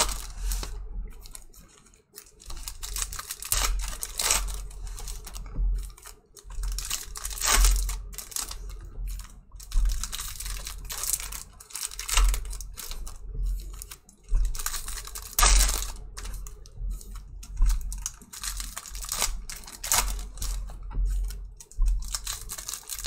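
Foil trading-card pack wrappers crinkling and tearing as they are ripped open and handled, with the cards inside shuffled; irregular bursts of crackling with short pauses between them.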